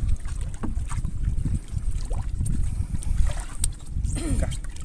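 Water sloshing around a small fishing boat at sea, over a constant uneven low rumble of wind on the microphone, with scattered light knocks.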